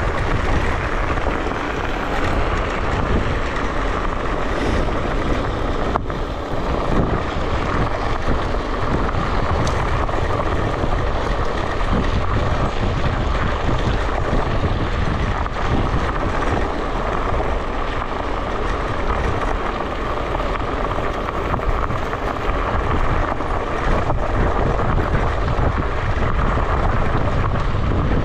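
Electric scooter ride: wind rushing over the action camera's microphone and tyres rumbling over the ground, a steady noise without a break.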